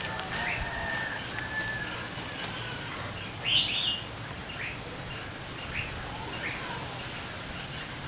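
Birds calling among the branches: short chirps every second or two, with a louder double note about three and a half seconds in, over a steady low background hum.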